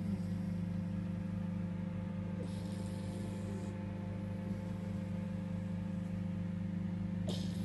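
Beagle snoring in its sleep: a breathy snore about two and a half seconds in and another near the end, over a steady low hum.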